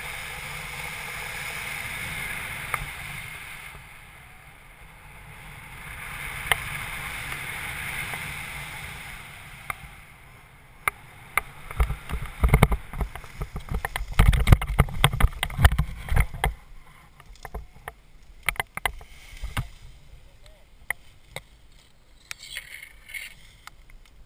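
Paraglider landing: a steady rush of air over the camera microphone on the final glide, then a loud run of low thumps and knocks as the pilot touches down in dry grass and scrub, followed by scattered rustling and clicks of brush against the harness and lines.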